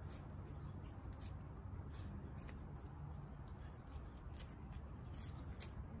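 Scissors snipping hair that is tangled around a Roomba's bristle brush roll: faint, irregular snips, several over the stretch.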